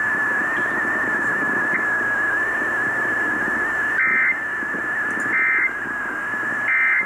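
Emergency Alert System end-of-message data tones: three short, identical bursts of warbling digital tones about a second apart, signalling the end of the relayed warning. Underneath is AM radio reception with steady static and a constant high whistle.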